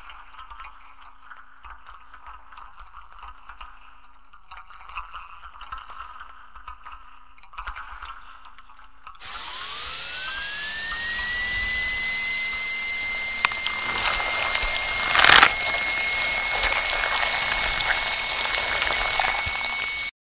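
Faint rattling and scraping, then about halfway through a power-tool-like motor starts up suddenly. Its whine rises in pitch and settles into a steady high whine, with one loud burst a few seconds later, and it cuts off abruptly.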